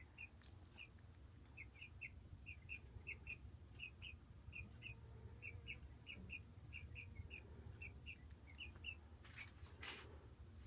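Two small pet birds chirping faintly over and over, short chirps in twos and threes, with a brief rustle near the end.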